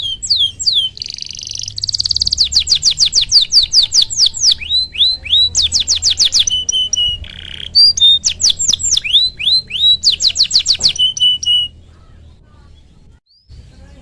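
Domestic canary in full song: fast runs of repeated downward-sweeping whistled notes, several a second, broken by short buzzy rolls and brief steady trills. The song stops about twelve seconds in.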